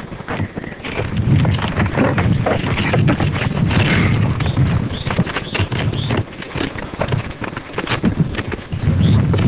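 Uneven rumble of wind and handling noise on the camera microphone, with many short knocks and rustles.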